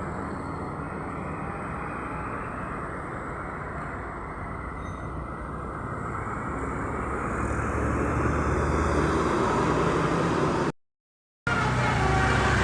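Road traffic with a tour bus engine rumbling past, growing louder past the middle as it comes closer. The sound drops out for under a second near the end, then comes back louder.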